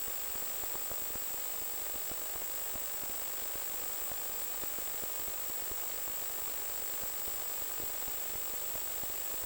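Steady static hiss from the audio channel of an analog FPV video link (Lawmate 1 W transmitter and receiver), with a thin steady high whine.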